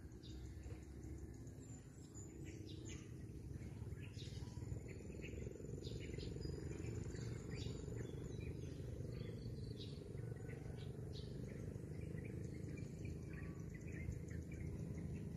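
Birds chirping in short, repeated calls over a steady low rumble of background noise, which grows louder over the first few seconds.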